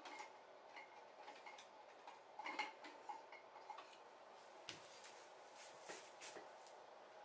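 Faint, irregular small clicks and taps over quiet room tone, with a brief light clink about two and a half seconds in.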